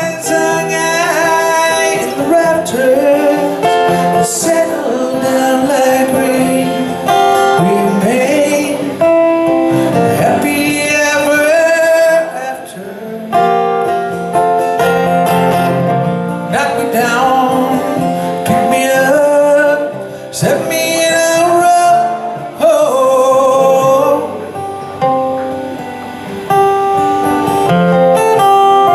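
A man singing a folk-country song, accompanying himself on a strummed acoustic guitar.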